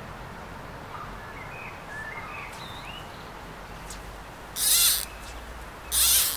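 Fly rod and line swishing through the air twice during casting, about a second and a half apart in the second half, over a few faint bird chirps.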